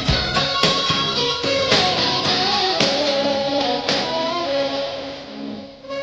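Background music with a beat, getting quieter near the end.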